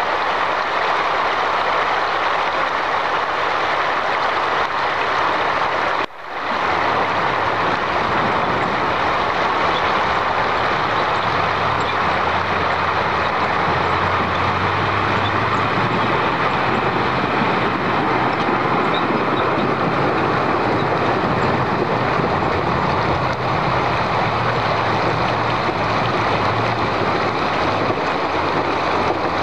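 Fast river water rushing steadily around a KamAZ truck fording it, with the truck's diesel engine running low underneath from about the middle on. The sound drops out briefly about six seconds in.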